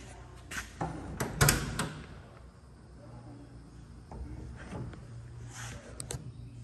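A run of sharp clicks and knocks, the loudest about one and a half seconds in and a couple more near the end, over a steady low hum: a composite-bodied race car's door being handled and opened.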